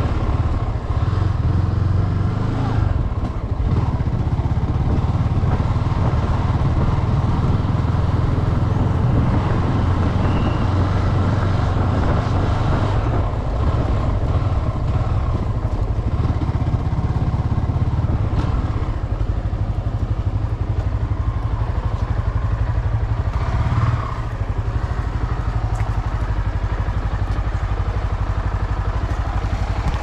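Honda motorcycle engine running steadily while riding on the road, with road and wind noise; the level drops a little about two-thirds of the way through.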